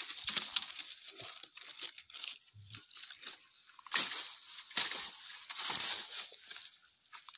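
Dry palm fronds and straw rustling and crackling as they are pushed aside and hacked with a long blade, in irregular bursts that are loudest about four seconds in and again a second later.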